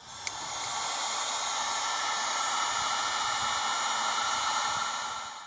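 Heat gun blowing hot air onto heat-shrink tubing over a wire connection: a steady fan hiss that builds over the first second and cuts off suddenly at the end.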